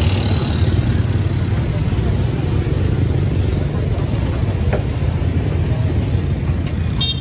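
Steady low rumble of street traffic, with no single vehicle or event standing out.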